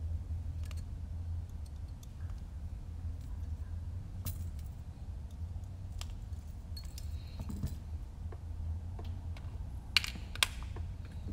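Light metallic clicks and clinks of a hex screwdriver and small socket-head screws being worked into a drone's frame, over a steady low hum. Two sharp clinks near the end are the loudest.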